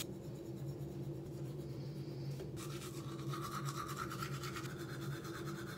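Manual toothbrush brushing teeth in quick back-and-forth strokes, getting louder about halfway through, over a steady low hum.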